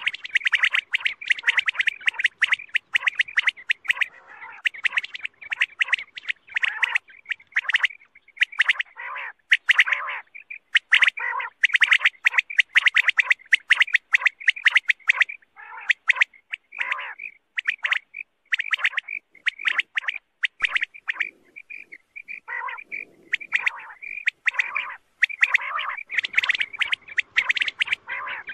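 Quail (batair) calling: a dense, fast run of short, sharp chirping notes with hardly a pause, thinning a little about two-thirds through and filling in again near the end. It is a quail call played as a lure to draw quail in for hunting.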